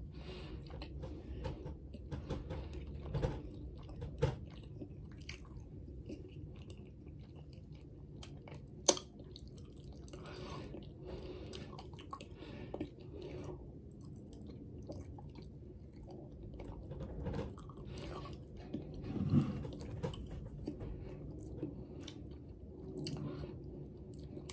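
A person chewing a mouthful of Subway sub sandwich, with wet mouth clicks throughout and a few sharper knocks, the loudest about nine seconds in.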